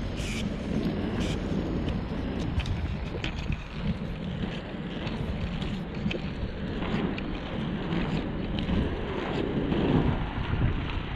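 FR325 inline skate wheels rolling over asphalt with a steady rumble, mixed with wind buffeting the microphone.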